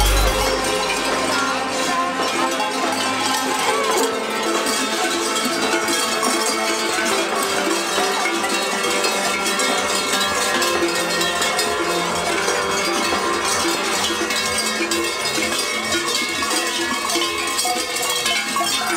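Many large cowbells clanging continuously, worn on the belts of Krampus costumes and swinging as the runners walk.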